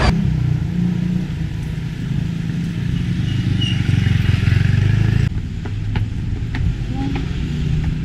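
A car engine running close by, a low steady drone. About five seconds in it cuts to quieter street sound with a few faint clicks.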